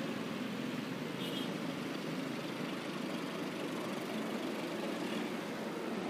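Steady engine and road noise of a Honda motor scooter riding slowly through city traffic among trucks and motorcycles, with a brief high-pitched chirp about a second in.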